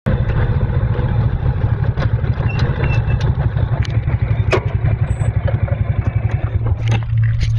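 Rice combine harvester's engine running steadily, with a dense clatter of working machinery and occasional sharp clicks over its low hum; near the end the clatter stops and the engine drone carries on alone.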